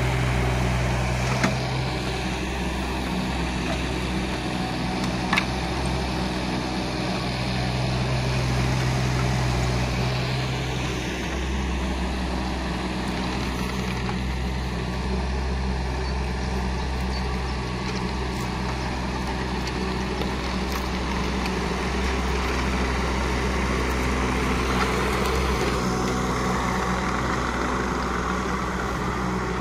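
JCB 16C-1 mini excavator's three-cylinder diesel engine running steadily under hydraulic load while it digs, its low note shifting as the work changes. A sharp knock sounds about five seconds in.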